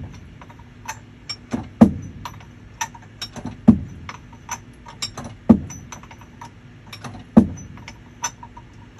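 A socket wrench is being worked on a marine gearbox's output coupling nut. Light metallic clicks run between heavier metal clunks, which come about every two seconds, four times.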